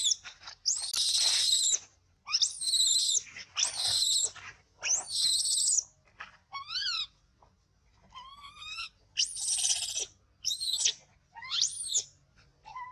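Baby macaque crying in distress: a run of about ten shrill, high-pitched screams, each under a second, some arching up and down in pitch, with a few softer, chirpier cries in the middle.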